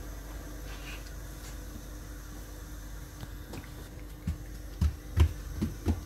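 Hands pressing and patting a sheet of rolled pastry dough on a granite countertop. Over a faint steady hum, a few soft low thumps and light taps come in the second half.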